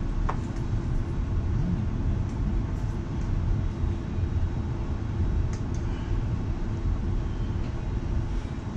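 City bus running, heard from the front of the passenger cabin: a steady low engine and drivetrain rumble with a constant hum and a few faint small clicks.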